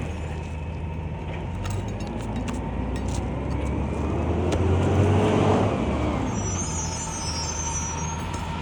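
A road vehicle's engine running, swelling to its loudest about five seconds in and then easing off, with a few light clicks.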